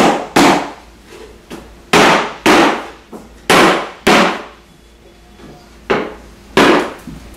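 A rubber mallet knocks against a cabinet side panel about seven times, several blows in quick pairs, seating the panel's clips and dados onto the shelves and back.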